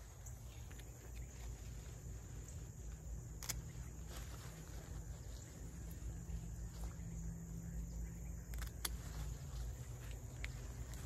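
Hand pruners snipping okra pods off the stalks: a few sharp clicks, two close together near the end, over a steady high chirring of insects and a low rumble.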